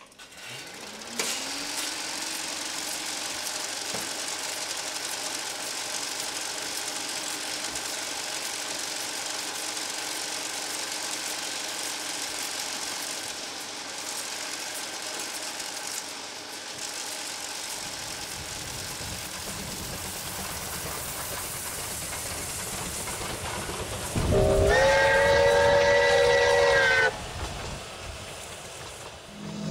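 Ezh3 metro car: a steady electrical machine hum that rises in pitch over the first couple of seconds and then holds, with a low running rumble joining a little past halfway. Near the end the train's horn blows once for about three seconds.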